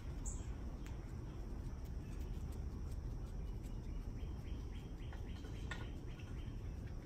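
Outdoor background noise: a steady low rumble, with a brief high bird chirp just after the start and a few faint clicks.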